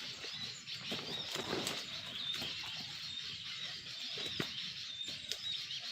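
Small birds chirping and calling repeatedly in short high notes, mixed with quick wing flutters and rustling.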